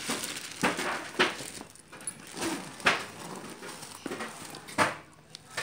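Clear plastic wrapping crinkling as packed items are handled and unwrapped, with a handful of sharp crackles.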